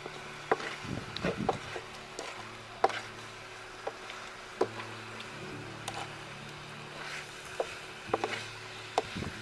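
A cooking utensil stirring pork legs and bamboo shoots in a wok, knocking and scraping against the pan in irregular clicks over a low hiss of the food cooking.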